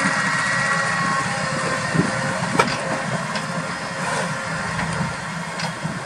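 Case IH Optum 270 tractor's diesel engine running steadily under load as it pulls a Schuitemaker Robusta slurry tanker injecting slurry into grassland, with a couple of sharp knocks from the rig about two seconds in. The sound eases off slightly as the rig moves away.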